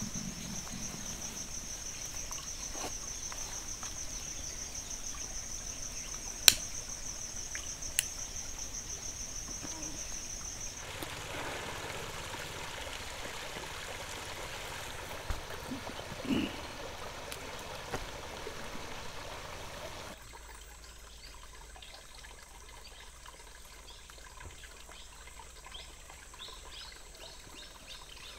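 An insect's high, rapidly pulsing trill, steady for about the first ten seconds, with two sharp clicks during it. Then the trill stops and only a soft, even outdoor hiss remains, dropping quieter about two-thirds of the way through.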